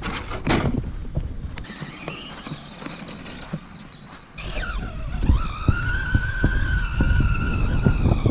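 Electric motor and drivetrain of an Associated Pro2 SC10 RC short-course truck whining as it drives off across sand. About four and a half seconds in it gets louder: the high whine dips, then rises and holds a steady pitch as the truck runs on.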